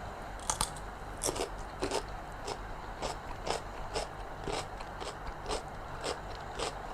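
Someone chewing raw cucumber with the mouth close to the microphone: crisp, regular crunches, about two a second.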